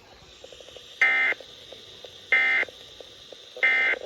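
Emergency Alert System SAME digital data bursts: three short, shrill, buzzy bursts about a second and a quarter apart, the end-of-message signal that closes the severe thunderstorm warning.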